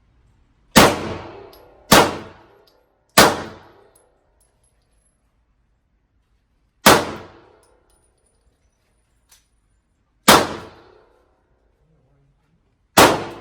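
Six single gunshots, spaced unevenly, each one sharp and dying away over about a second.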